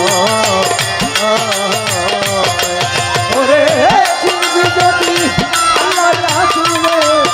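Bengali baul folk ensemble playing an instrumental passage between sung verses: a gliding melody line over steady, fast percussion.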